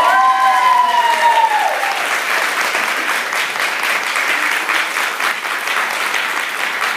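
Audience applauding steadily at the end of a dance performance, with one long shouted cheer from the crowd that rises and falls away over the first two seconds.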